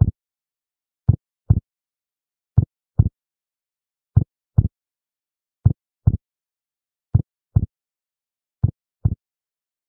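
Heartbeat sound effect: slow, deep double thumps (lub-dub), one pair about every second and a half, with silence between.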